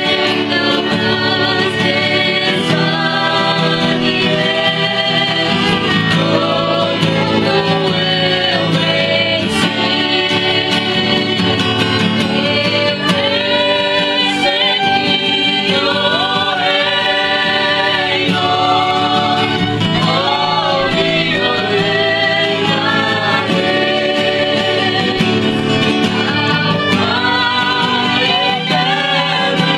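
A small group of men and women singing a hymn together, accompanied by acoustic guitars.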